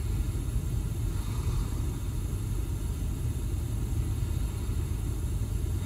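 Steady low background rumble, with a faint high whine running over it.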